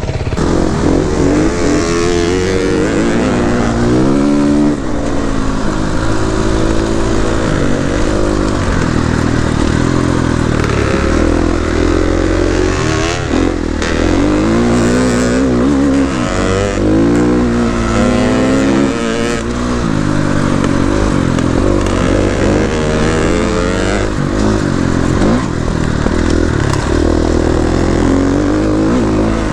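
Single-cylinder dirt bike engine under way on an off-road trail, the revs rising and falling again and again as the rider works the throttle and gears.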